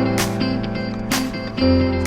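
Background music with a steady beat: sustained bass and chord notes over regular drum hits.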